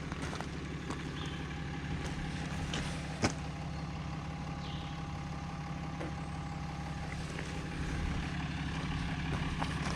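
Motor vehicle engine running steadily, with a few light clicks and one sharper click about three seconds in.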